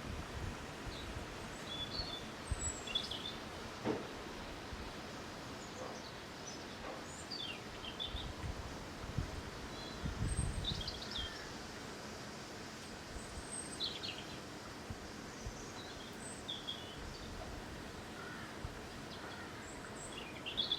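Wind blowing steadily, with low gusts rumbling now and then, the strongest about halfway through, while small birds chirp in short high calls throughout.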